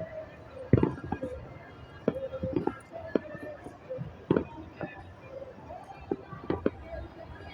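Irregular sharp bangs and cracks of New Year fireworks going off at a distance, several a second at times, with gaps between.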